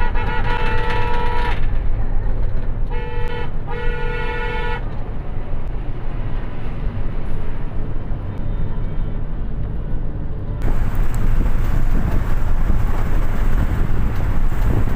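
Steady road and engine rumble of a moving vehicle with a vehicle horn sounding three times in the first five seconds: one long blast, then a short one and a longer one. About ten and a half seconds in, a hiss of wind noise comes up and stays.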